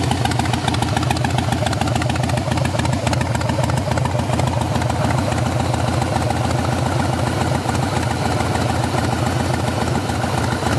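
Harley-Davidson V-twin engine idling steadily through a Bassani custom exhaust, its firing pulses beating at an even rate.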